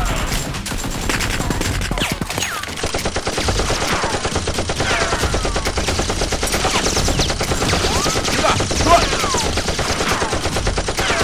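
Rapid, continuous automatic-gunfire sound effects laid over a toy-blaster fight, with several falling whistles, like rounds whizzing past, and a sharp crack about nine seconds in.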